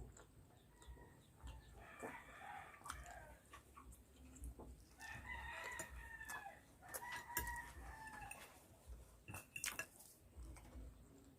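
A rooster crowing faintly a few times, each crow long and drawn out, with small clicks in between.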